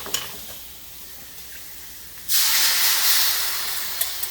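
Soy-and-vinegar sesame sauce poured into a hot wok of oil, hitting the pan with a sudden loud steam hiss about two seconds in that slowly dies down; a couple of clinks and a low sizzle come before it.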